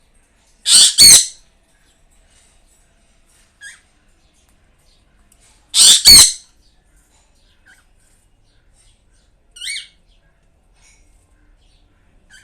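Caged pet birds squawking: two loud, harsh double squawks, about a second in and again about six seconds in, with a couple of faint short calls between.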